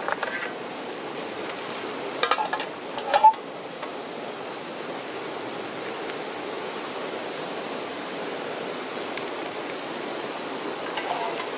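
Metal clinks as a steel mess-tin frying pan is set down onto a gas camping stove, the loudest about three seconds in, then the stove's burner hissing steadily under the pan.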